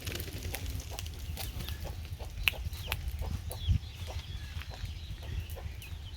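Chickens clucking with short high calls, over a steady low rumble, with a sharp knock about two and a half seconds in and a thump a second later.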